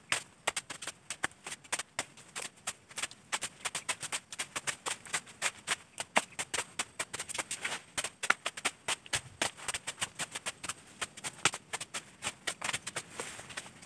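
Dry brush, fern fronds and twigs crackling and snapping as someone pushes through undergrowth: a quick, irregular run of small snaps and rustles.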